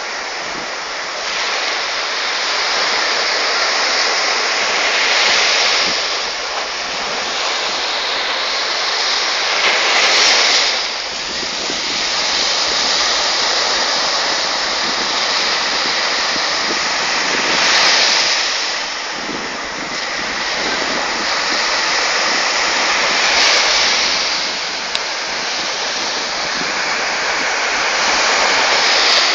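Sea surf breaking on the shore: a continuous rush of water that swells every several seconds as waves come in and wash up the beach.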